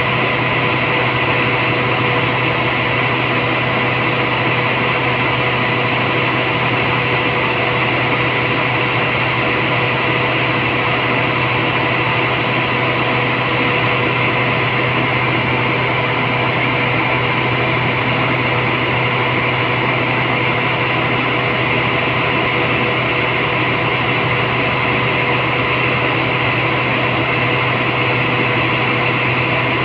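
Steady drone of water-treatment plant machinery running: a low hum with a few steady higher tones over an even rushing noise, unchanging.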